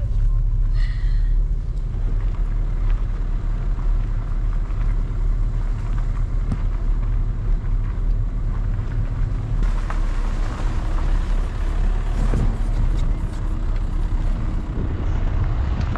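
A car driving, heard from inside the cabin: a steady low engine and road rumble, with tyre and road noise growing louder about ten seconds in.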